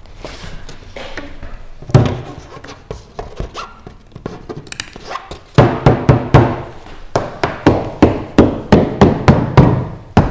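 Thumps and knocks on the taut fabric skin of a kayak during hand stitching of the deck seam: a single sharp knock, then from about halfway a quick run of thumps, roughly three a second.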